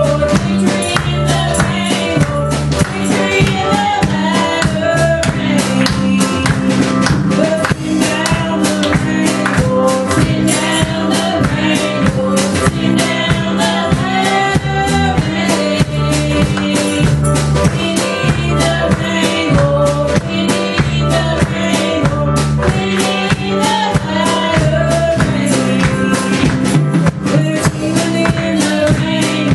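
Live church band music: a drum kit and an electric keyboard playing a steady beat, with women's voices singing through microphones and a PA.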